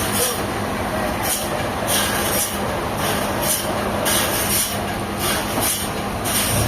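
Heavy sawmill machinery running: a continuous rattling, grinding noise with a sharper hiss recurring about twice a second.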